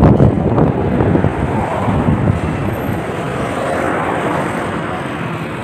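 Wind buffeting the microphone over the hum of a motorbike's engine and road noise while riding, a little louder in the first couple of seconds.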